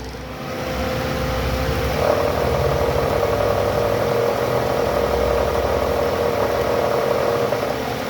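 Toyota Alphard ANH10's 2.4-litre four-cylinder engine running with a steady growl from the belt drive, put down to a weak belt tensioner. The sound swells about half a second in and then holds steady.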